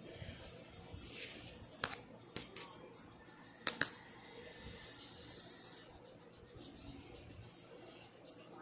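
Small handling sounds at a sketchbook: a sharp click about two seconds in and a quick double click near four seconds, with soft scratchy rubbing of paper between them.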